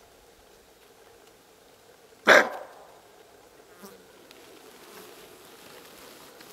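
A bushbuck gives a single loud, harsh alarm bark a little over two seconds in, the call it makes on spotting a stalking leopard.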